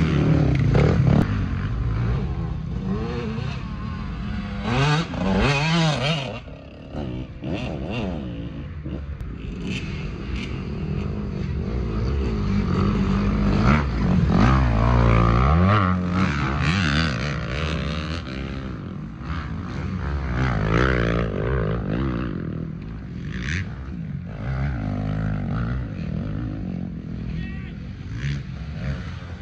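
Motorcycle engines running and revving, their pitch rising and falling again and again as the bikes ride.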